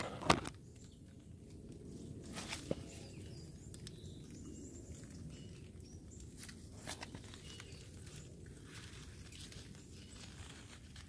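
Soft rustling and a few sharp crackles of dry leaves and twigs being stepped on and brushed against, the loudest crack just after the start, over a low steady rumble.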